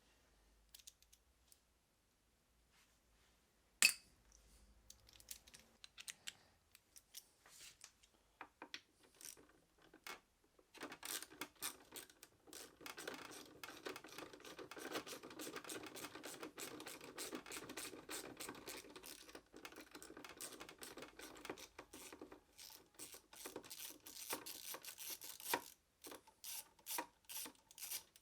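Ratchet wrench and hand tools backing out a motorcycle's radiator bracket bolts. Scattered clicks with one sharp click about four seconds in, then a long run of rapid ratchet clicking from about eleven to twenty-two seconds in, then separate clicks again.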